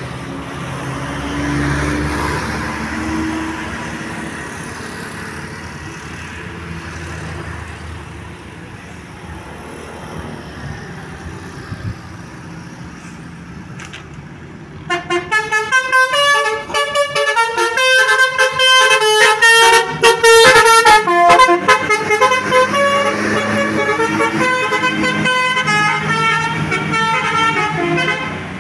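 Vehicle engine and traffic noise, then, about fifteen seconds in, a telolet bus horn (Basuri V3 multi-tone horn) starts playing a fast melodic tune of quick stepped notes, which runs loud until the end.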